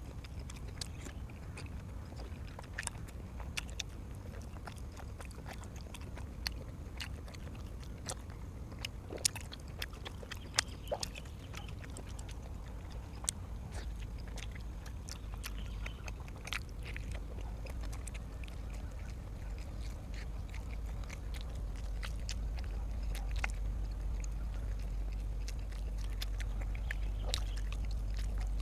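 Close-miked eating: a person chewing and biting food, with irregular sharp clicks and ticks from the mouth and food, over a low steady hum that grows a little louder in the second half.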